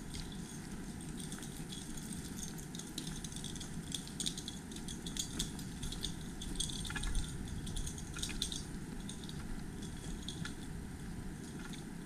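Irregular light clicks and clinks, like small hard objects knocking together, over a steady low rumble.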